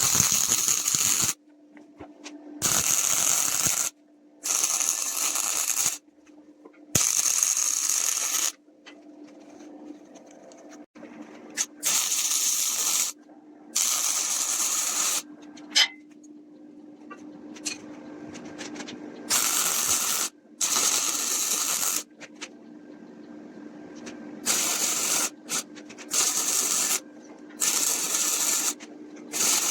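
A power sander running with a steady hum, broken by repeated loud hissing bursts of one to two seconds each as the abrasive is pressed onto the wood and lifted off.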